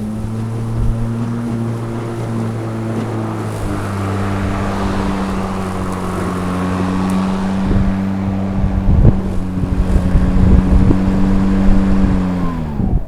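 Kobalt battery-powered self-propelled lawn mower running and cutting grass, its electric motor and blade giving a steady hum with low thumps in the second half. Just before the end the motor is switched off and the blade spins down, the pitch falling away.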